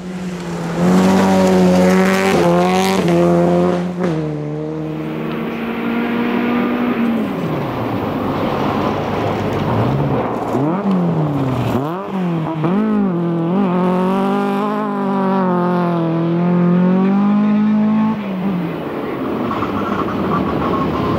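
Rally cars at full throttle on a gravel stage, passing one after another. Each engine note holds high, rises and falls with gear changes and lifts, then drops away as the car passes.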